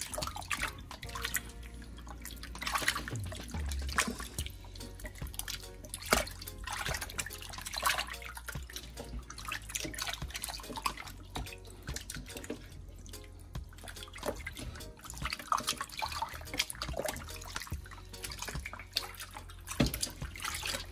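Hands washing raw beef ribs in a stainless steel bowl of water in a sink: irregular sloshing, splashing and dripping as the meat is turned and rubbed.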